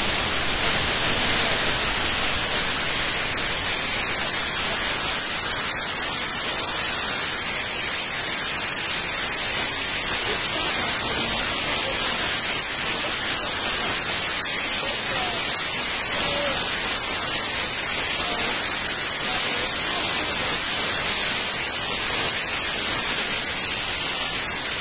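Steady loud hiss of recording noise from the microphone, with a faint high-pitched whine wavering above it.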